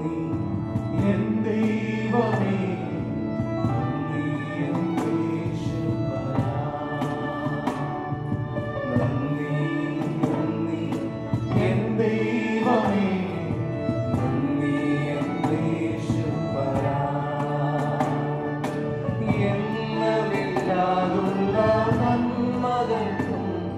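Music with singing voices over instruments and a steady beat.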